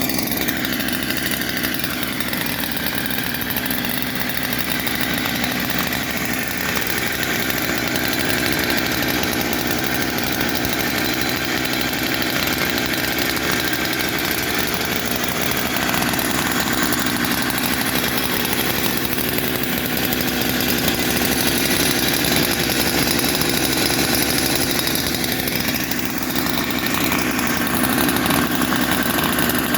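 An engine running steadily, slightly louder from about two-thirds of the way in.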